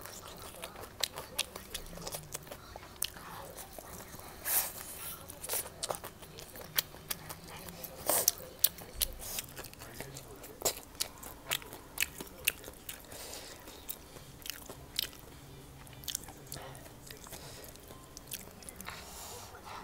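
Close-up eating sounds: a person chewing and biting food, with irregular sharp wet clicks and an occasional crunch.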